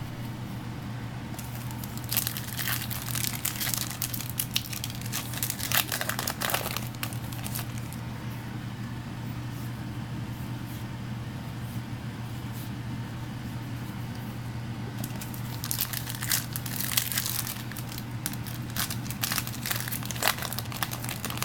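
Foil booster-pack wrappers crinkling and tearing as trading-card packs are handled and opened, in two bouts of crackly rustling over a steady low hum.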